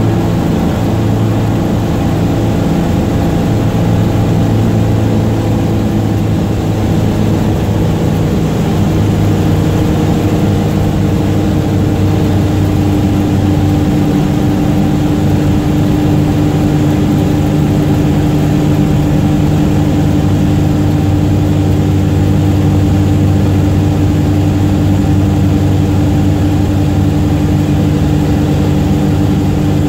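Single-engine propeller airplane's piston engine and propeller running at takeoff power, a loud steady drone heard from inside the cockpit. The pitch of the drone drops slightly about twelve seconds in.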